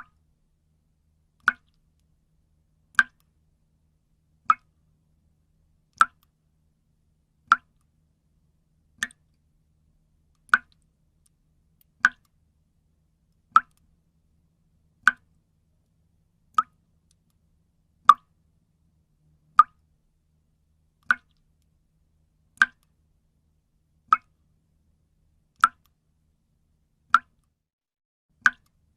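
Single water drops falling one at a time into water, a clear plop about every second and a half in a slow, even rhythm.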